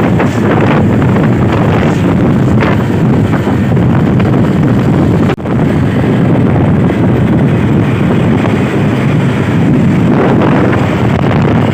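Steady, loud vehicle engine and road noise with wind buffeting the microphone, broken by a brief dropout about five seconds in. No horn sounds.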